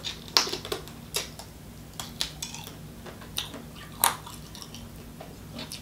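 A person chewing crab meat with the mouth close to the microphone: irregular wet smacks and sharp clicks of lips and tongue, the loudest about four seconds in.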